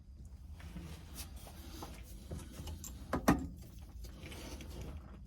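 Light handling noises: rustling and scattered small clicks, with one sharper knock a little past three seconds in.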